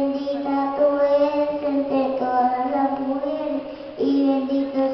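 Children singing a slow hymn in long held notes that step from one pitch to the next.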